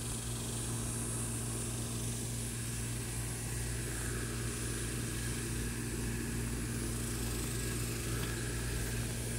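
Steady low machine hum, even throughout, with a faint high hiss over it.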